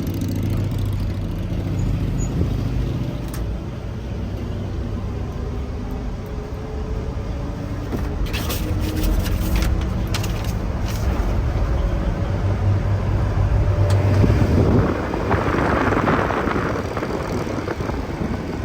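Truck engine and road noise while driving, the engine note slowly rising and falling with speed. A louder rush of noise comes about three-quarters of the way through.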